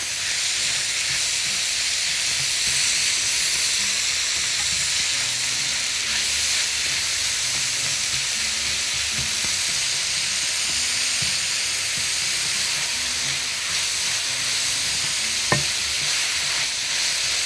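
Minced beef sizzling steadily as it fries in a little oil in a nonstick pan, stirred and broken up with a wooden spatula. There is a single knock near the end.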